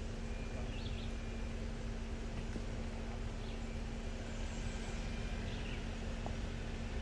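Steady low rumble with a constant low hum, and a few faint, short bird chirps.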